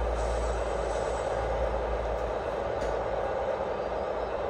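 Sound decoder in an O gauge model InterCity 125 playing a steady diesel power-car engine sound through its small speaker as the model train runs slowly along the track.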